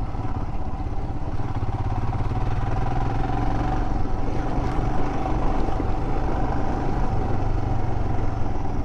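Royal Enfield Himalayan's 411 cc single-cylinder engine running at a steady, even pitch as the motorcycle rides slowly along a dirt track.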